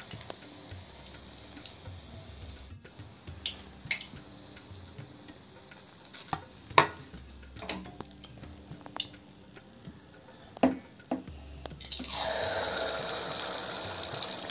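Deep-frying in a kadai of oil: a few light utensil clinks over quiet oil, then about twelve seconds in a loud, steady sizzle starts up, typical of fresh kandarappam batter poured into the hot oil.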